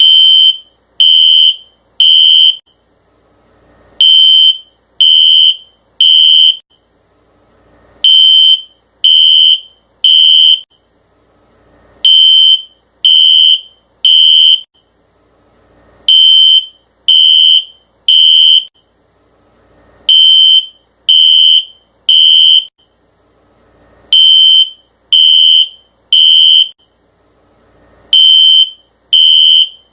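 Fire alarm sounding the temporal-three evacuation pattern: three loud, high-pitched beeps, then a short pause, repeating every four seconds.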